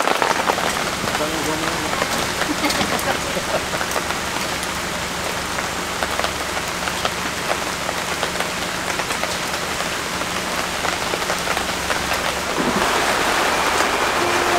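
Heavy rain falling steadily, with many separate drops ticking close by. It grows a little louder and denser near the end.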